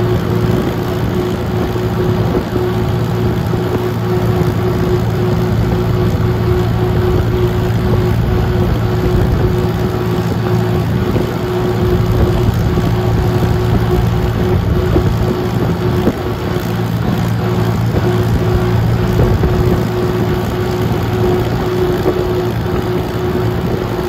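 Vintage tractor engine running steadily while the tractor drives along, heard from on board.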